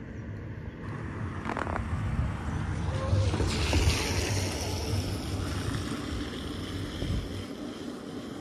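Wind buffeting the microphone with an uneven low rumble, and a rushing hiss that swells about three and a half seconds in and slowly fades.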